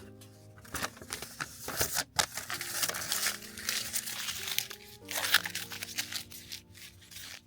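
Background music with steady held notes, under close crinkling and rustling from something being handled, with a few sharp clicks.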